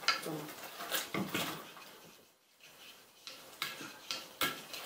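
Spoons scraping and clinking against glass mixing bowls as thick slime is stirred, in irregular short clicks. The slime has just set stiff from a borax activator.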